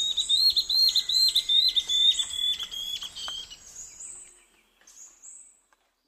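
Ocellated antbird singing: a long series of whistled notes, about three a second, each dipping in pitch at its end, fading away after about three seconds.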